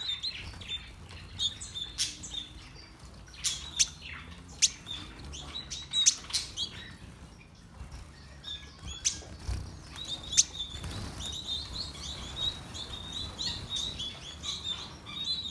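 A colony of small finches chirping continually with short, high calls, mixed with scattered sharp clicks and wing flutters as birds hop and take off around the wire cages.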